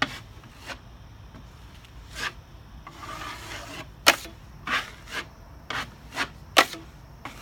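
Metal drywall knife scraping joint compound across a wall patch. There is a soft scrape, then a quick run of short, sharp scrapes and clacks of the blade in the second half.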